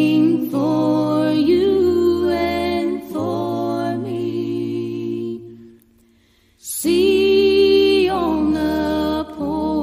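A hymn sung by several voices in harmony, in long held chords phrase by phrase, with a brief pause about six seconds in before the next phrase begins.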